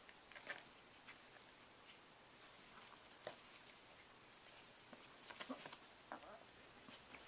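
Faint, scattered clicks and scrapes of a Chihuahua mother's and puppy's paws and claws on a plastic tub and rustling blanket bedding, with a busier patch about five seconds in.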